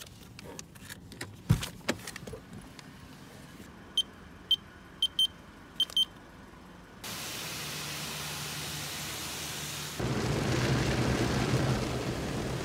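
A few knocks and a thump, then a string of short high electronic beeps in pairs, then a steady car engine hum with road noise that gets louder about ten seconds in.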